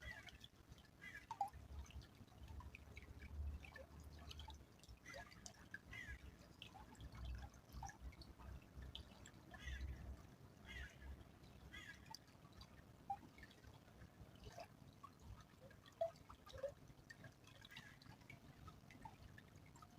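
Small stream trickling faintly, with many quick, irregular drips and plinks of water, and an occasional low rumble underneath.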